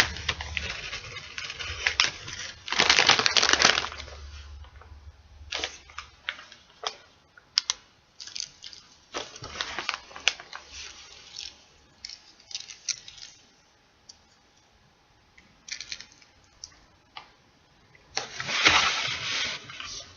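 Chip bag crinkling and crackling as it is handled, in noisy bursts with many separate sharp crackles and taps between them.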